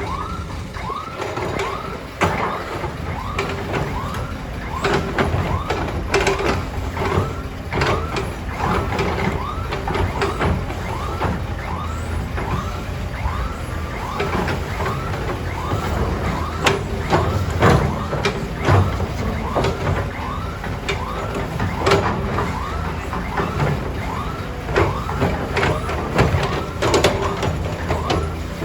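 Heavy vehicle engine running with a low steady rumble, over a repeating electronic chirp that sounds about twice a second. Scattered knocks run throughout.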